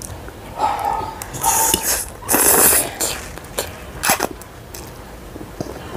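A person slurping instant noodles: a few loud, hissing slurps in the first three seconds, followed by chewing with a couple of sharp wet mouth clicks.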